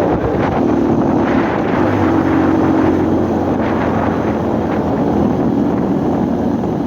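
Motorcycle engine running steadily, with a noise that the owner is unsure points to a problem.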